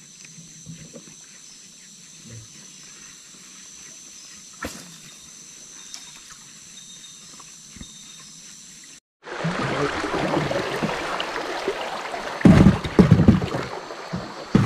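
A quiet stretch with a faint steady high-pitched drone. After a cut about nine seconds in, water splashes and rushes loudly beside a boat on a river, with a few heavy splashing thumps near the end.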